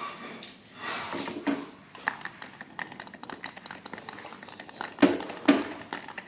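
Metal pieces clinking and tapping in quick, irregular light clicks, with two louder metallic knocks about five seconds in.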